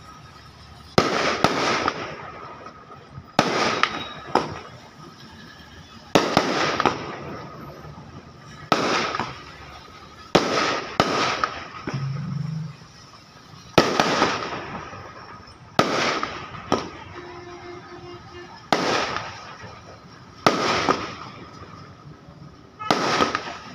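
Fireworks bursting in the sky, about a dozen sharp bangs spaced every one to three seconds, each trailing off in an echo over about a second.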